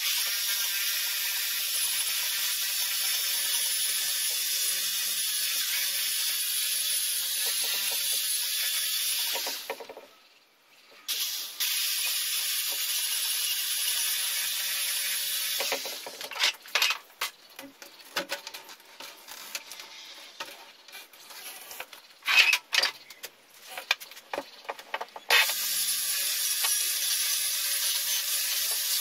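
Corded electric drill spinning a rotary cutting bit against a wooden door frame, grinding down the spot where the door was sticking. It runs steadily with a high whine and stops briefly about ten seconds in. From about sixteen seconds it gives rough, uneven bursts as the bit bites into the wood, then runs steadily again near the end.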